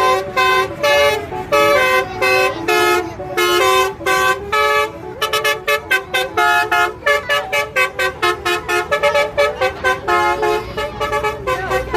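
Basuri 'telolet' multi-tone bus horn playing a melody in a string of pitched toots. The notes are held longer at first and become short, quick toots, about three or four a second, from about halfway through.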